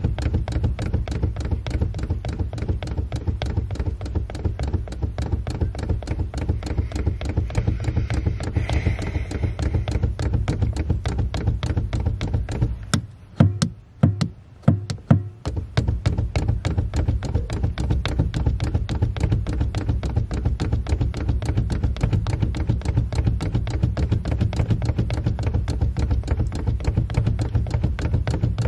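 Car engine running, with a steady rhythm of rapid pulses and a strong low hum. About halfway through, the low engine sound drops away for a couple of seconds, broken by a few sharp knocks, then comes back.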